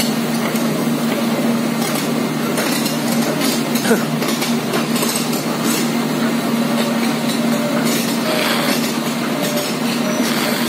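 A PC450 tracked excavator's diesel engine running steadily under load as it drags a dead excavator undercarriage, with the steel tracks clanking irregularly over the gravel.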